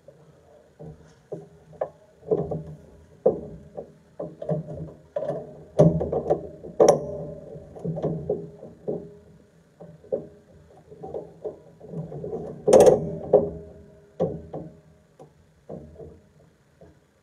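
An irregular series of mechanical clicks and knocks, some ringing briefly, loudest about six to seven seconds in and again about thirteen seconds in.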